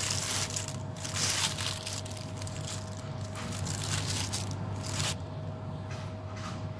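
Thin plastic bag crinkling and rustling as it is pulled open and spread flat, in irregular bursts that stop about five seconds in. A steady low hum runs underneath.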